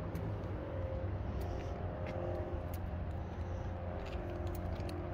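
Toyota GR86's 2.4-litre flat-four engine idling with a steady low hum.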